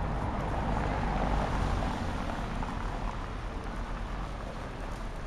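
Street traffic noise: a vehicle's rumble and tyre hiss swelling about one to two seconds in, then easing off.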